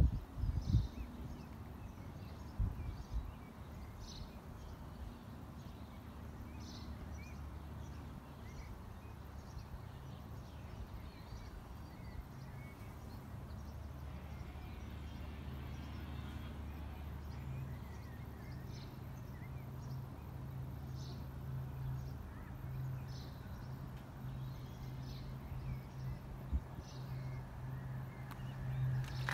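Quiet outdoor ambience: short, faint bird chirps now and then, over a low steady hum that grows stronger from about halfway through. A couple of low thumps come in the first few seconds.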